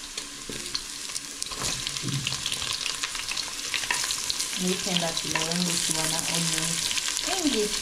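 Beef browning in hot ghee in a metal pot, sizzling and crackling; the sizzle grows louder about halfway through as the sliced red onions go into the hot fat.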